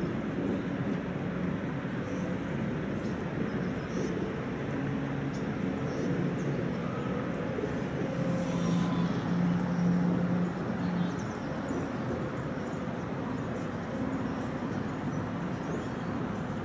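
Steady outdoor background noise with a low engine hum, typical of distant road traffic, a little louder from about eight to eleven seconds in.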